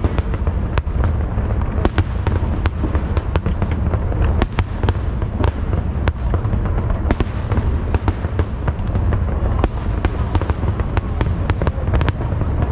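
Fireworks display in full flow: a continuous low rumble of aerial shells bursting, with many sharp cracks and bangs going off irregularly throughout.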